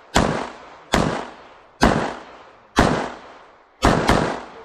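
Open-division IPSC pistol, a Bul SAS II, firing six shots at about one a second, the last two in a quick pair near the end. Each sharp report is followed by a decaying echo.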